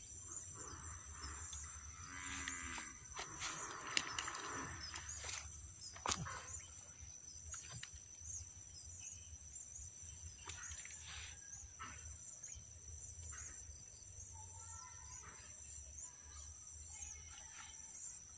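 Steady, high-pitched chorus of insects trilling in an even pulsing rhythm. A couple of sharp clicks come about four and six seconds in.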